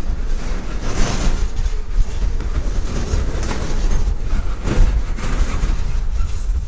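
Freight train rolling past: a steady low rumble of boxcar wheels on the rails, with clacks from the wheels crossing rail joints about every second or so.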